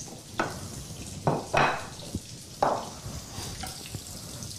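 Trout fillets frying skin-side down in hot oil in a pan: a steady sizzle, with a few short, louder bursts in the first three seconds.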